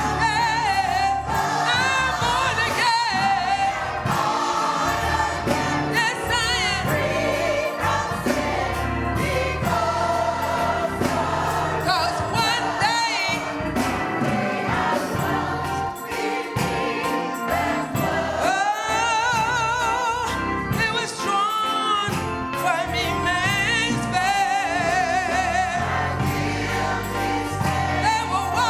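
Gospel choir singing with band accompaniment, voices wavering with vibrato over a steady instrumental backing.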